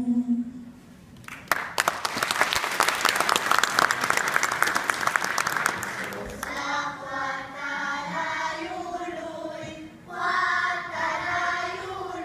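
A held sung note ends, and after a short pause an audience applauds for about five seconds. About six seconds in, a woman and a group of children start singing together.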